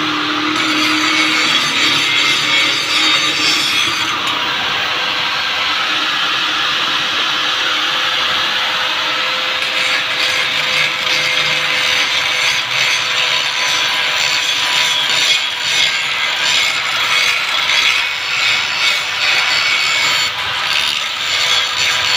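Handheld electric angle grinder running against a rusty steel frame: a steady hiss of grinding over the motor's whine. From about halfway through it grows rougher and more uneven as the grinder is worked along the metal.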